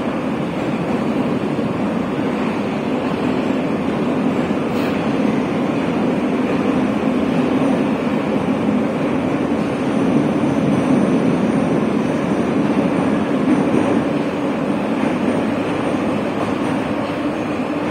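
Steady running noise inside a moving 81-718/719 metro car: wheels rumbling on the rails in a tunnel, swelling slightly about two-thirds of the way through.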